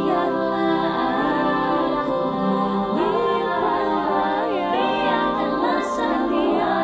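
A cappella vocal arrangement in several layered parts: voices hold a sustained chord while a lead voice glides and bends over it.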